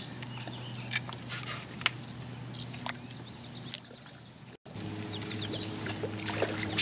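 Outdoor lakeside ambience: small birds chirping faintly over a steady low hum, with a few sharp clicks in the first couple of seconds. The sound drops out for an instant a little past halfway, and the hum comes back with a second, higher tone.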